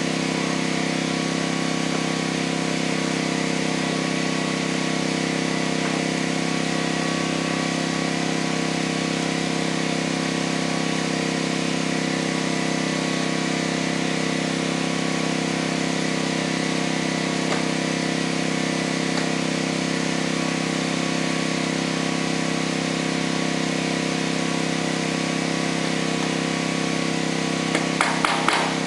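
A small engine running at a steady speed, with an even drone that does not change. Near the end a run of quick hammer blows starts up.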